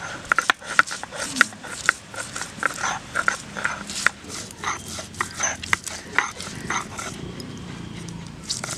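Stone roller crushing and grinding garlic cloves on a flat stone grinding slab (shil-nora), making rapid, irregular knocks and scrapes of stone on stone.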